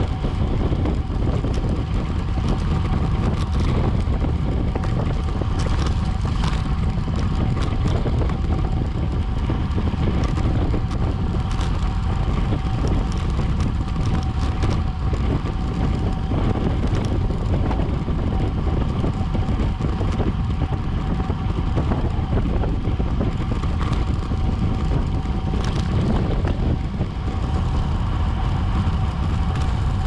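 Steady wind and road noise picked up by a camera mounted on a racing bicycle at race speed, with a faint steady high tone and scattered light clicks.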